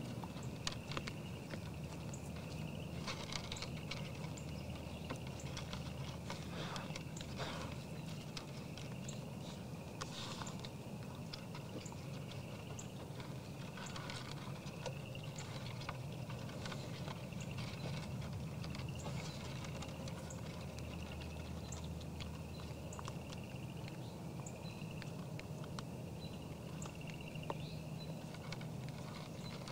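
Whitetail deer eating feed from a trough feeder: many small irregular crunches, clicks and scrapes as their muzzles rummage and chew in the pan, over a steady low hum.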